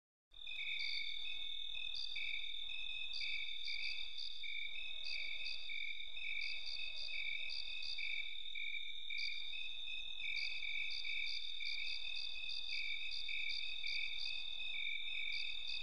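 Crickets chirping at night: one steady high trill with rhythmic pulsed chirps from others over it, starting about half a second in.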